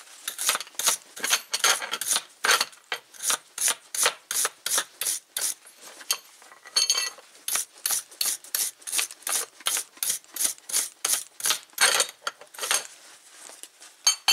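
Wire brush scrubbed back and forth over a freshly brazed steel hydraulic-line fitting, in quick scraping strokes about three a second, cleaning the leftover flux off the brass joint.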